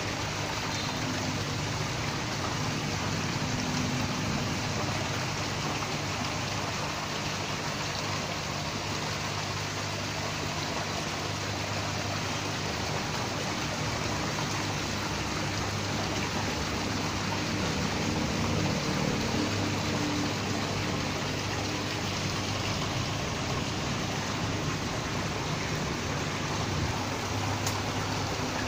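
Steady rush of running, splashing water in koi holding tanks, with a faint low hum underneath.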